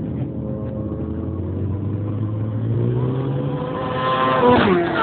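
Racing motorcycle engines at high revs, rising in pitch as they approach, then dropping sharply in pitch as they pass close by near the end.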